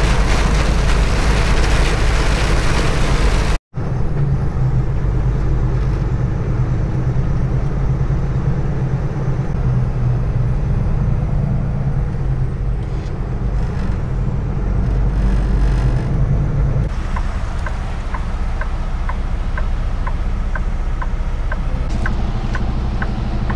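Heavy rain and wind noise on a Kenworth T680 semi truck at road speed, heard from the cab, cutting off abruptly a few seconds in. The truck's diesel engine then runs with a steady low drone as it moves slowly. From about two-thirds of the way through, a steady ticking comes in at about one and a half ticks a second.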